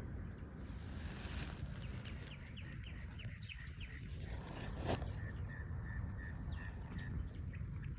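Birds chirping over a steady low wind rumble on the microphone, with a run of short repeated notes through the middle and one sharp click about five seconds in.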